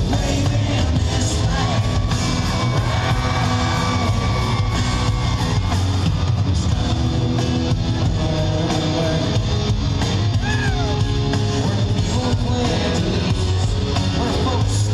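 Live country-rock band playing in an arena, heard from the audience: acoustic and electric guitars over drums, with a long held note a couple of seconds in and a short bending note near the end.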